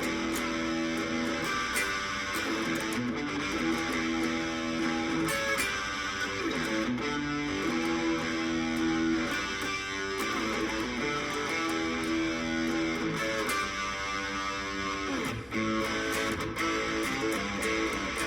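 Electric guitar played through an amplifier with overdrive, playing rock and roll riffs and chords, with notes held a second or so at a time.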